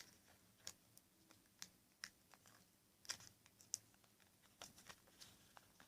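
Faint, scattered clicks and crinkles of a thin cardboard box and sticky tape being handled, as its edges are folded inward and taped down.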